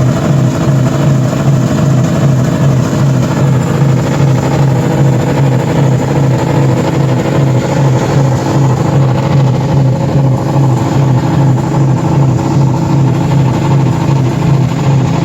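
Car engines running together at a steady, unchanging speed, being run hard to try to blow them up, with an even pulsing drone.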